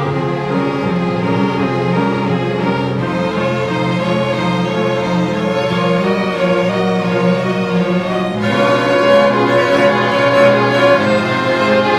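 Bowed string ensemble, violins over cello, playing a hymn tune; the music swells fuller and louder about eight and a half seconds in.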